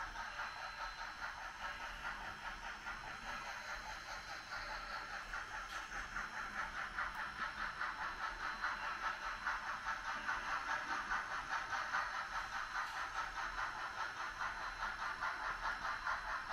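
HOn3 narrow-gauge model steam locomotive and its freight cars running along the track, a steady rhythmic clatter of about four beats a second.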